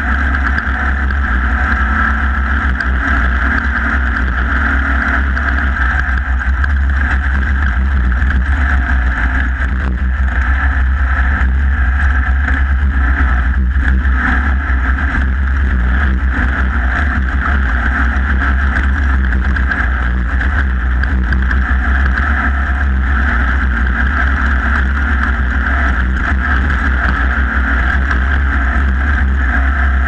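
Off-road race buggy's engine running steadily at racing speed across a dirt course, heard from on board the car.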